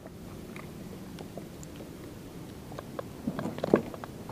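Faint handling noises as a large common carp is hooked by the lip onto a hand-held digital fish scale: scattered small clicks and taps, getting busier over the last second or so.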